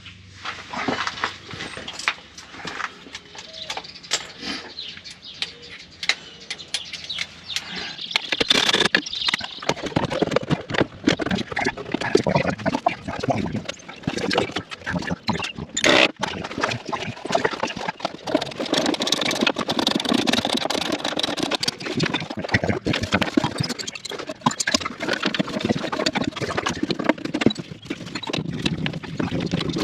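Hand tools working on the underside of a pickup truck: irregular metal clicks, clanks and knocks, busier after about eight seconds.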